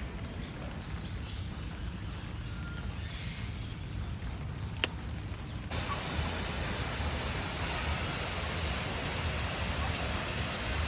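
Low, steady outdoor rumble with a single sharp click, then about halfway an even rushing hiss, like falling water, sets in abruptly and holds steady.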